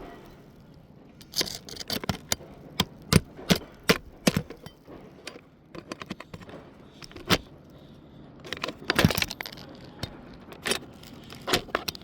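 Irregular sharp metallic clicks and knocks, a dozen or more, with a denser cluster near the end, as rusted roofing nails are worked out of a plumbing pipe boot's flange.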